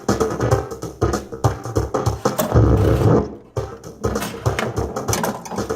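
Music playing through a faulty sound system, heavily distorted with a scratchy, crackling sound and choppy thumps.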